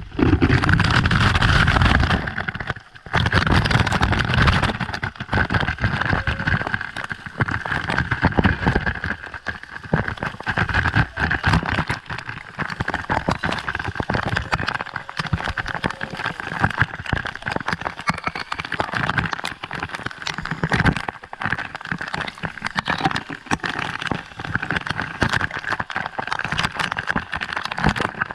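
Waterfall water rushing and splashing, a dense crackling spatter like heavy rain, with heavy low rumble in the first few seconds.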